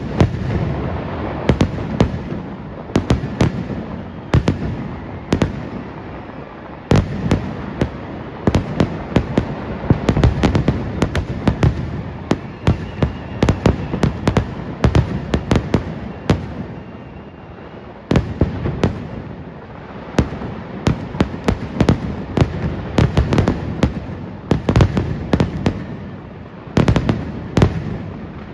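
Aerial fireworks display: shells bursting in rapid, sharp bangs and crackles over a continuous rumble. Fresh, denser volleys start about a quarter of the way in, again a little past halfway, and once more near the end.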